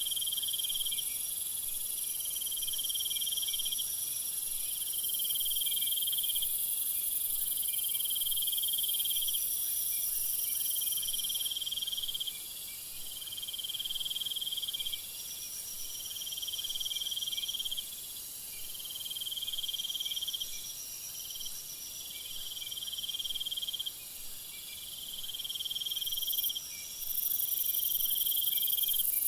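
Crickets and other insects trilling: one high trill comes in phrases of about a second and a half, repeating roughly every two seconds, over a steady, even higher continuous trill.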